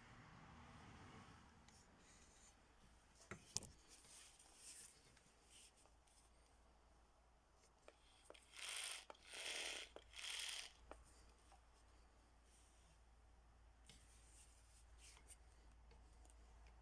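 Faint handling noises over a low hum: a sharp click, then three short rustles in quick succession.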